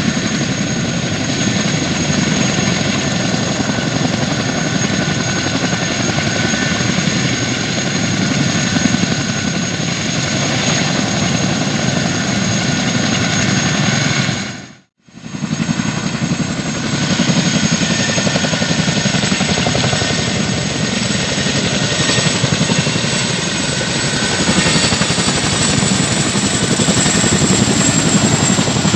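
CH-47 Chinook tandem-rotor helicopters running close by: a dense, steady rotor beat with a steady high turbine whine over it. The sound drops out briefly about halfway and grows a little louder near the end as a Chinook comes close.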